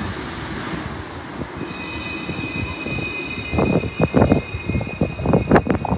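Melbourne C class (Alstom Citadis) low-floor tram running past at close range as it draws into a stop: a steady rumble, with a high, steady whine that comes in about a second and a half in. From about halfway through, irregular thumps join the rumble.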